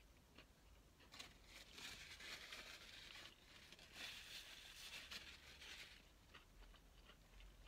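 Faint rustle and crinkle of a paper napkin as it is handled and wiped across the mouth, from about a second in to about six seconds, followed by a few small clicks.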